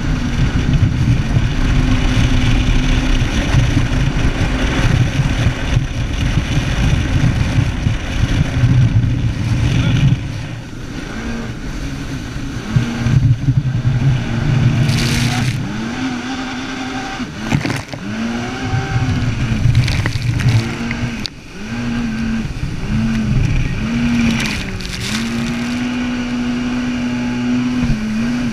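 Jet ski engine running at speed under a heavy low rumble for the first ten seconds or so. From about halfway on, its pitch repeatedly dips and climbs back as the ski carves through turns.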